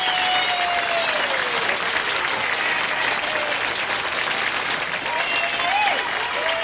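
Audience applauding, many hands clapping at once, with a few voices calling out over it.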